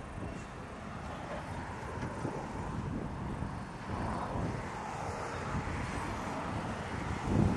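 ALCO S4 diesel switcher locomotive running with its train, a steady low engine rumble.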